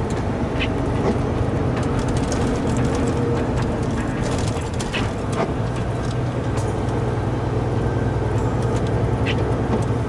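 Semi-truck engine running steadily under way, heard from inside the cab with road noise and a constant low hum.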